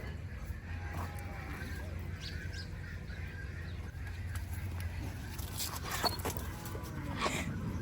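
Farmyard poultry calling faintly, with a few sharper calls in the second half, over a steady low hum.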